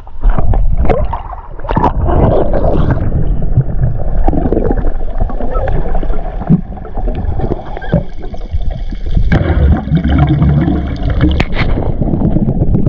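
Muffled underwater sound of water moving and gurgling as a spearfisher swims, with a few knocks.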